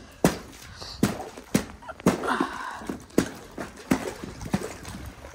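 A boot stamping on the ice in a frozen water trough to break it up: a run of about seven sharp cracking knocks, with broken ice and water stirring between them.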